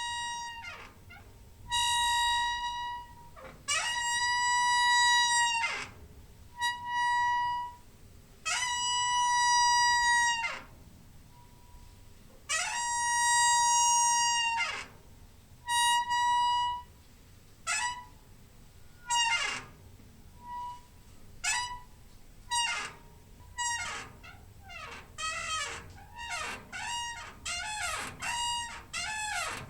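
Squeaking door hinge: a run of drawn-out, high-pitched creaks, each holding one steady pitch with a quick slide at its start and end. The first few last a second or two each. From about halfway on they come shorter and in quick succession.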